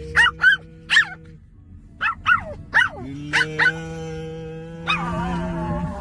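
Pomeranian puppy yipping and whining in short, high, arching calls, then giving a longer drawn-out 'a-o-o' howl near the end, her usual answer to being told to relax.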